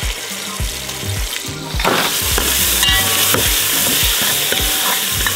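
Chili sambal and spices sizzling in hot oil in a metal pot while a metal spatula stirs and scrapes against the pot. The sizzle gets louder about two seconds in.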